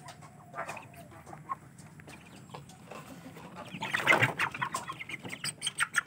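Young Aseel chickens clucking as they are taken out of their cage. The calls grow louder about four seconds in, among scattered knocks.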